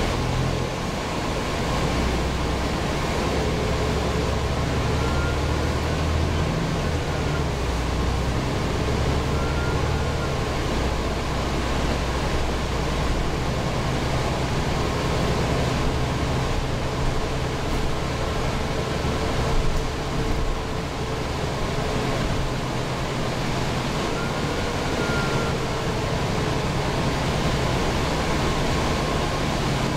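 Inside a New Flyer Xcelsior XD40 transit bus under way: the rear-mounted Cummins ISL9 diesel engine running, with steady road and ventilation noise. A faint whine rises and falls several times.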